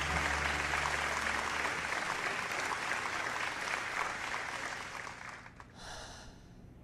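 Audience applause from a film soundtrack, dying away about five seconds in, with a low music chord fading out in the first two seconds. Near the end, a short breath into a microphone.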